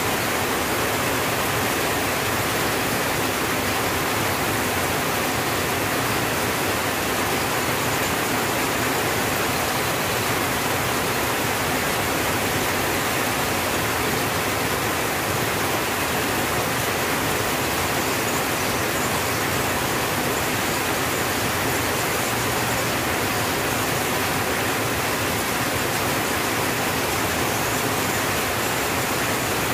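Rain falling steadily on a tin roof: a dense, even hiss with no separate drops standing out.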